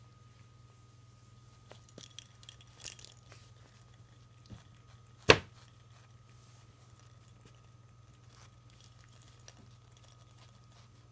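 A cat biting and clawing a fabric catnip toy: light crinkling and clinking sounds, bunched together a couple of seconds in, with one sharp click about five seconds in that is the loudest sound. A steady low hum runs underneath.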